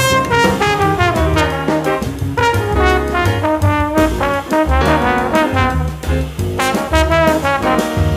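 Background music with brass instruments and a steady bass beat.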